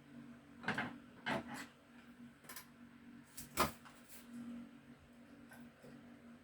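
A few sharp clicks and light knocks of wiring and test leads being handled and connected, the loudest about three and a half seconds in, over a faint steady low hum.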